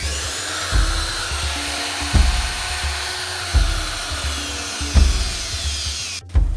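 Handheld router motor serving as a CNC spindle running at speed, a high whine over a loud hiss, switched on through the controller's spindle output; it cuts off suddenly about six seconds in. Background music with a steady beat plays underneath.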